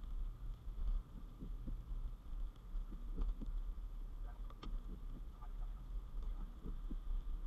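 Low, uneven road and engine rumble heard from inside a moving car's cabin on a wet road, with scattered faint ticks.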